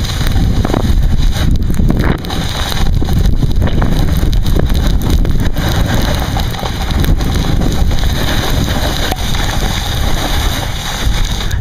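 Wind buffeting a Flip HD camera's built-in microphone while snowboarding downhill: a loud, steady rushing rumble.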